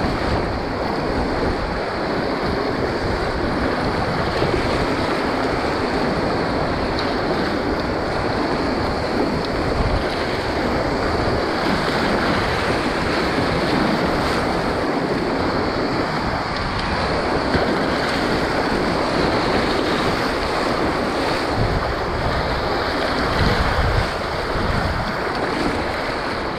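Whitewater rapids rushing and churning steadily around a kayak, heard close up, with wind buffeting the action camera's microphone.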